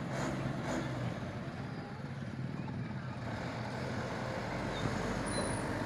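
Diesel engines of large cargo trucks running at low revs as they approach slowly, a steady low hum that grows a little louder near the end.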